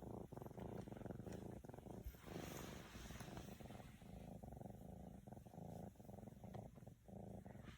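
Siamese kitten purring, faint and steady.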